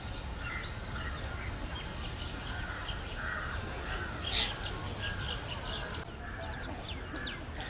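Several birds chirping with short, scattered calls, one louder call about four seconds in, over a steady low background rumble.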